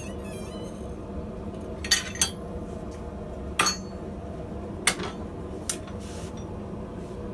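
Steel rod and tools clinking metal on metal, five short sharp strikes, two of them close together about two seconds in and the rest spread out after, some ringing briefly, over a steady low hum.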